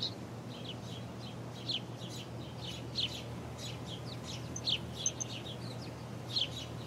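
Small birds chirping, short high chirps coming irregularly about one or two a second, over a steady low hum.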